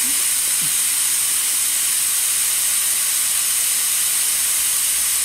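Compressed air hissing steadily out of the slightly opened outlet valve on an oil-free air compressor's 8-litre tank, the tank pressure bleeding down.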